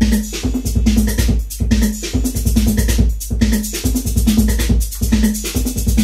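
Detroit techno played on a Roland TR-808 drum machine and a Roland Jupiter-6 synthesizer: a steady drum-machine beat over a deep bass, with a short synth figure repeating about every second and a half.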